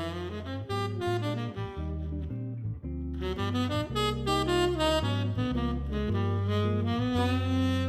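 Background jazz music with saxophone over a walking bass line.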